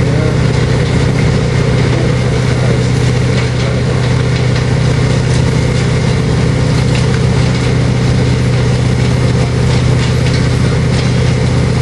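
Engine of a railway track-maintenance train idling with a steady, loud low rumble.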